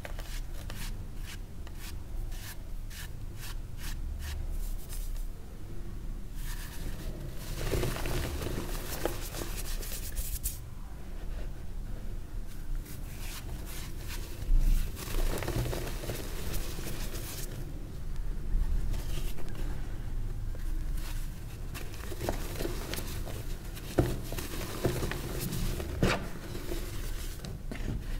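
Reformed gym chalk being crushed and crumbled, with dusty, powdery crunches. It opens with a quick run of small crackles, then comes in several longer stretches of crunching with quieter gaps between.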